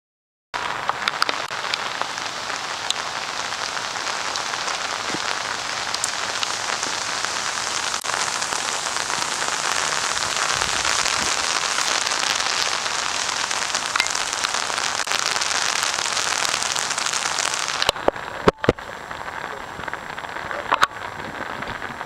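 Heavy rain falling, a steady dense hiss; about eighteen seconds in it suddenly drops to a lighter rain sound with a few sharp clicks.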